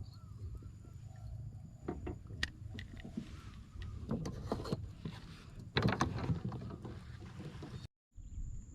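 Knocks and water noise from a small boat: a couple of sharp knocks about two seconds in, then clusters of knocks with a splashy hiss around the middle and again a little later, over a steady low rumble. The sound cuts out briefly near the end.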